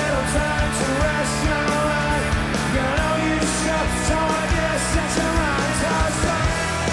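Live rock band playing loudly: a male lead vocal over electric guitars, bass and drums, with regular cymbal crashes.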